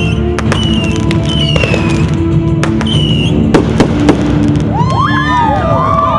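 Consumer fireworks going off: scattered sharp bangs and crackles, the loudest cluster about three and a half to four seconds in, then several whistling fireworks screaming at once, their pitches gliding up and down, near the end.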